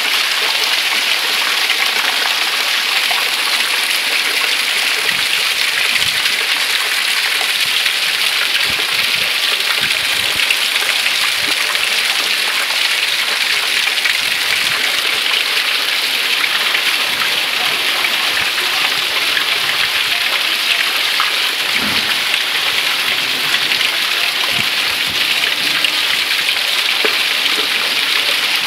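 Heavy rain pouring steadily onto a flooded stone-paved street, a dense even hiss of drops on stone and standing water.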